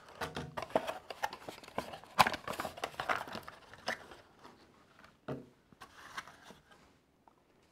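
Cardboard packaging being cut open and handled: a busy run of clicks, scrapes and rustles, with a sharp click about two seconds in. It thins out after about four seconds, leaving a single soft knock.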